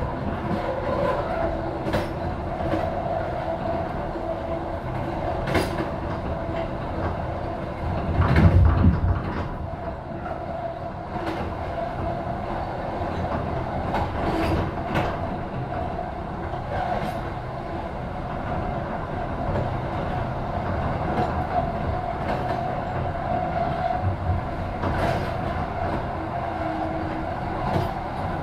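Train running along the track: a steady rumble from the wheels and running gear, with irregular sharp clicks as the wheels pass over rail joints. A louder low rumble swells briefly about eight and a half seconds in.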